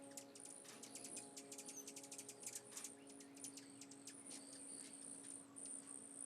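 Faint nature ambience: a steady high-pitched insect trill with many quick, high bird chirps and ticks scattered through it, over a low held tone.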